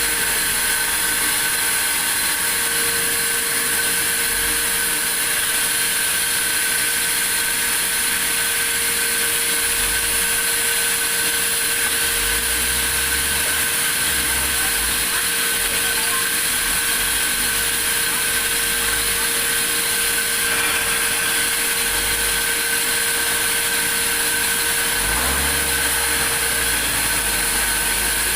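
Sawmill saw running steadily, a constant hiss with a steady high whine and no breaks.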